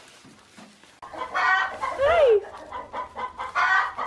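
Chickens squawking and clucking: several loud calls begin about a second in, and one call rises then falls in pitch.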